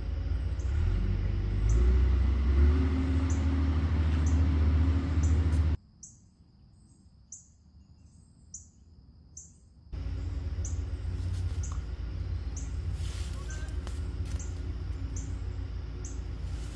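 Low engine rumble of machinery working, its pitch shifting for a few seconds. It cuts off abruptly to near silence about six seconds in and comes back as a steady rumble about four seconds later.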